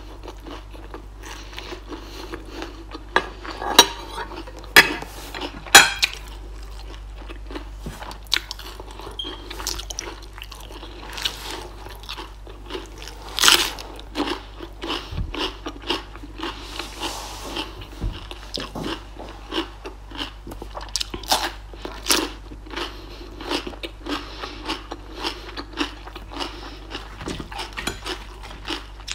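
Close-miked eating sounds: steady chewing broken by loud, crisp crunching bites. The loudest crunches come a few seconds in and again just past the middle, as a raw green chili is bitten.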